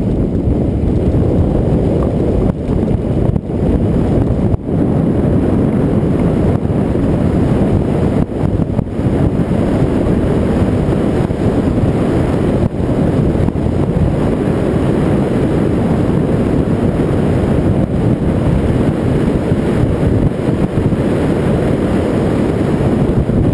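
Loud, steady wind buffeting on a moving action camera's microphone, a dense low rumble from travelling at speed.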